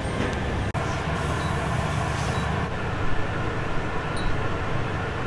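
Steady low rumble of machine noise, like ventilation or equipment running, broken by a momentary dropout under a second in.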